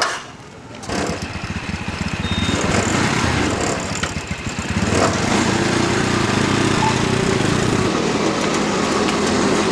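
A small engine running: a low, even pulsing sound that comes in about a second in, then settles into a louder, steady run from about five seconds in.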